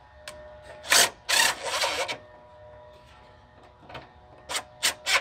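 Cordless drill driving a 10 mm fastener into a plastic header panel: one short pull and a run of about a second, then three quick blips of the trigger near the end.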